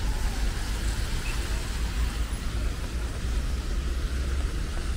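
Steady city road traffic noise: a constant low rumble of passing vehicles with the hiss of tyres on a wet road.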